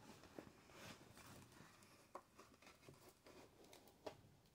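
Near silence, with a few faint, soft clicks and rustles of a cardboard Blu-ray box set being handled and turned over in the hands.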